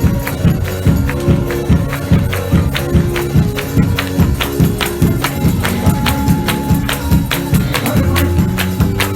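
Lively church band music with a steady beat: sustained bass and chord notes under evenly spaced percussion hits, about two to three a second, with tambourine.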